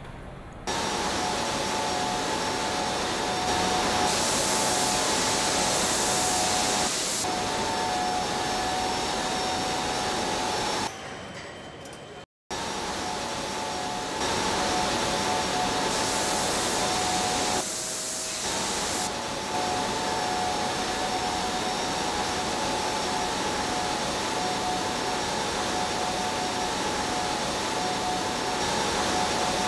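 Steady factory machinery noise from a truck assembly plant: an even hiss with a few steady high hums over it. It jumps in level abruptly several times and cuts out briefly about twelve seconds in.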